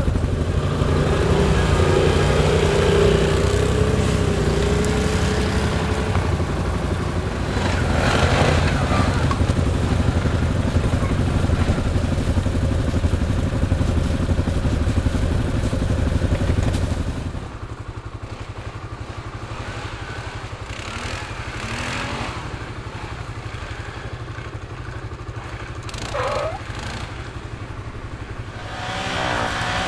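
ATV (quad bike) engines running in deep snow, loud and close for the first half. About seventeen seconds in the sound drops to a quieter engine drone, and it rises again near the end as a quad revs through the snow.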